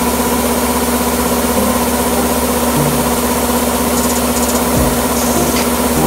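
Kubota Dynamax Rebel ER-470 combine harvester running while its unloading auger pours harvested rice grain from the spout. A loud, steady mechanical drone with a constant hum.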